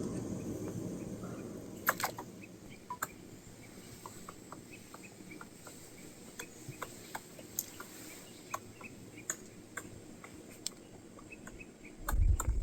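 Scattered light ticks and clicks, irregular, one or two a second, over faint background noise, with a low rumble starting near the end.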